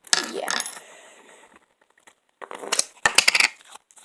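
A spoon clinking and scraping against a small bowl as slime is scooped into it, in a quick cluster of clicks about two and a half seconds in.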